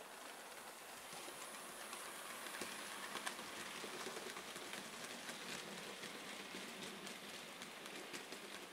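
Model railway train of loaded open wagons rolling past: a steady rattling hiss of small metal wheels on the rails with frequent clicks over the rail joints, growing louder to a peak a few seconds in and then slowly easing.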